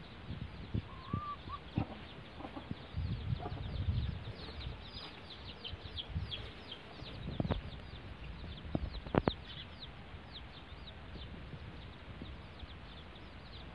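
A brood of twelve-day-old desi chicks peeping continually, many short high cheeps that fall in pitch. A low rumble comes a few seconds in, and two sharp knocks come in the second half.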